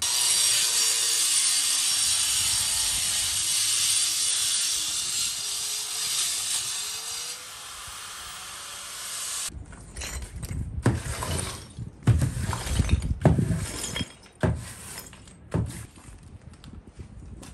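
A loud, steady hiss that cuts off suddenly after about nine and a half seconds, followed by a run of irregular knocks and clatters.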